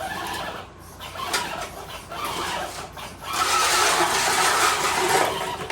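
Axial Bomber RC crawler truck pulling a chained, weighted load across a garage floor. Its electric motor and gears whine while the tyres scrabble, growing louder for about two seconds in the second half.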